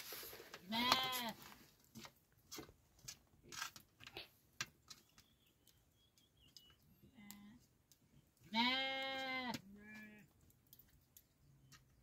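Sheep bleating: a short bleat about a second in and a longer, louder one near the end, with faint scattered clicks between.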